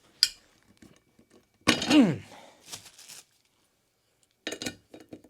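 Office-chair casters being worked in and out of the chair base: a sharp plastic click, a short falling-pitched squeak-like sound about two seconds in, then a rustle and a run of small clicks and knocks near the end.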